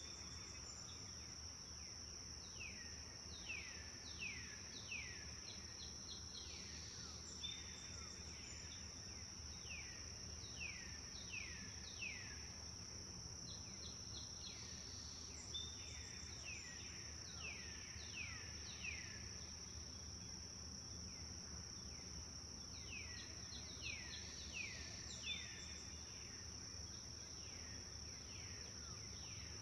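Songbirds singing in repeated phrases of quick falling whistled notes, every few seconds, over a steady high-pitched drone of insects.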